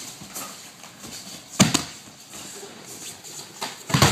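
Aikido breakfalls: two loud thuds of bodies landing on the mat as attackers are thrown, one about a second and a half in and another near the end.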